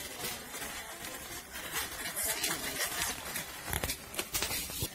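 Rustling, scraping and light tapping of a handbag being handled close to the microphone.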